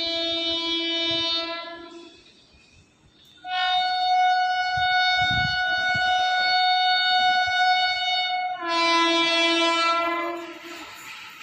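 Electric locomotive's horn sounding on approach in long blasts. A low tone ends about two seconds in, and after a short pause a higher tone holds for about five seconds. The low tone then returns for about a second and a half.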